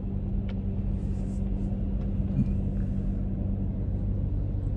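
Steady low rumble and hum of a car on the move, heard from inside its cabin.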